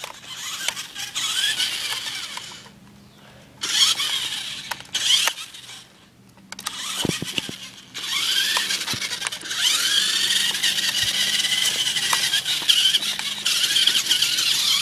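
Toy RC monster truck's electric motor and gearbox whining at a high pitch as it drives, cutting out briefly twice as the throttle is let off and picking up again. About two-thirds of the way in, the whine rises in pitch and holds as the truck speeds up.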